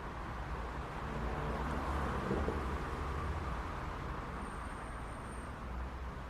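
City street traffic: a steady low rumble of engines and tyres, swelling louder about two seconds in as a vehicle passes closer, then settling back.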